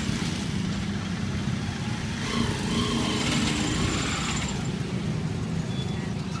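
A steady low engine rumble, like motor traffic idling close by.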